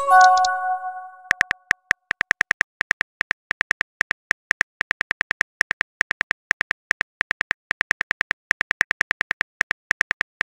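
A short bell-like message chime as a text appears, fading within about a second, then a rapid, uneven run of phone keyboard tap clicks, about five a second, as the next message is typed out.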